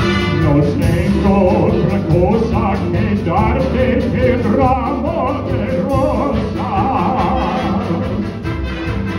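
Big band playing live, horns and drums together, with a melody line wavering in vibrato over the ensemble.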